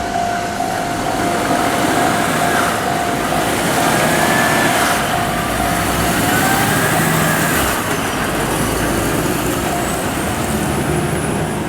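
Heavy double-trailer road train, around 120 tonnes gross, running past with a loud, steady rumble of engine and tyres. A steady level-crossing alarm tone sounds over it.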